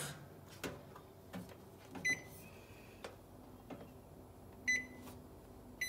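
Microwave oven beeping: three short, high single beeps, about two seconds in, near five seconds, and at the very end, with a few soft clicks in between.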